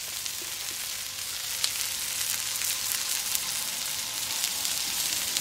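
Hot links and a tater tot, onion and bell pepper hash sizzling on a flat top griddle: a steady frying hiss with small crackles and pops.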